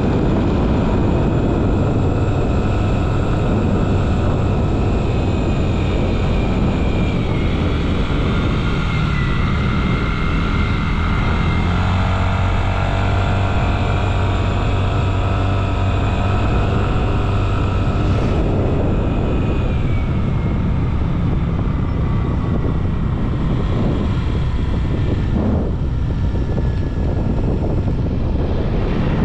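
Motorcycle engine running steadily at cruising speed, with wind rushing over the microphone. The engine's pitch eases down a little twice.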